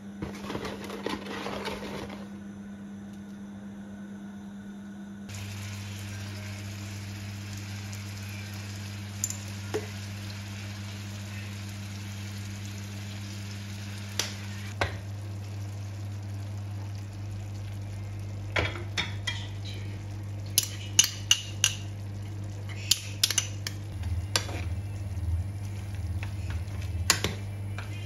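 Shrimp, clams and garlic sizzling in oil in a frying pan, over a steady low hum that drops in pitch about five seconds in. Sharp clicks and taps of chopsticks and a metal ladle against the pan come now and then, thickest in the last ten seconds as the pasta is tossed.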